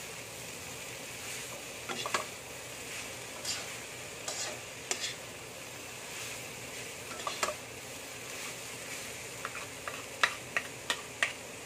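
Bean sprouts, carrots and tofu sizzling in a hot wok as they are tossed with a wooden spatula and a metal spoon, with scrapes and clicks of the utensils against the pan. A quick run of sharper clicks comes near the end.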